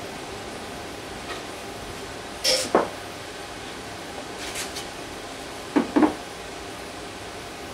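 Plywood boards knocking against each other and against the workbench as the sides of a shallow box are set in place by hand: two pairs of sharp wooden knocks, about two and a half and six seconds in, over a steady background noise.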